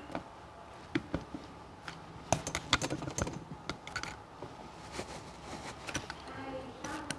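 Irregular small clicks and taps of tongue-and-groove pliers gripping and working parts on a metal ABS modulator unit.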